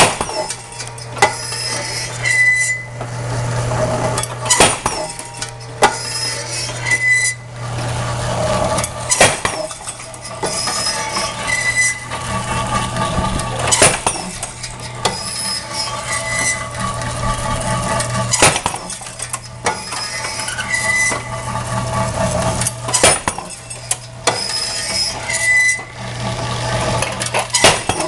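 An impact fatigue drop test machine running its cycles, about 12.7 drops a minute, over a steady electric-motor hum. A sharp impact comes about every four and a half seconds, with a short high squeak between impacts and metallic clinking and rattling throughout.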